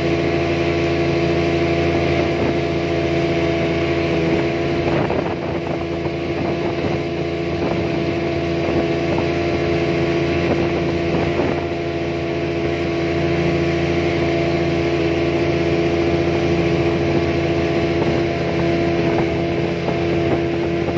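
A small boat's engine running steadily under way, a constant droning hum with a hiss of water and wind over it.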